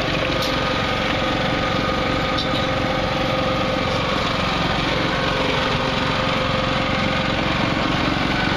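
A small engine running steadily with an even hum that does not change.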